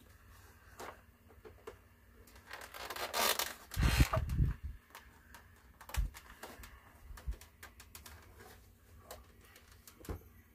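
Handling noise from a 1970s AM/FM stereo record player being moved about by hand: a scraping rustle about three seconds in, heavy thumps around four seconds, then scattered light knocks and clicks, the last as it is set down on the bench.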